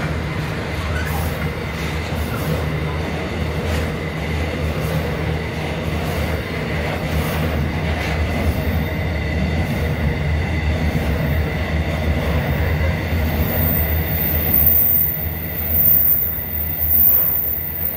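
Freight train hopper wagons rolling past on a curve: a steady low rumble of wheels on rail with a thin, steady squeal from the wheels. A higher squeal comes in near the end as the noise swells.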